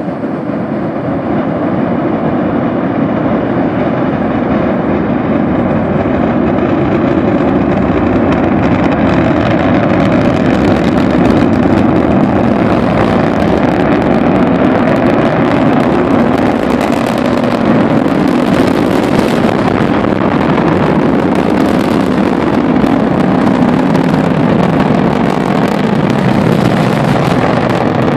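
Atlas V rocket's RD-180 first-stage engine heard from the ground during ascent: a loud, steady rumble that swells over the first couple of seconds and takes on a crackling edge from about ten seconds in.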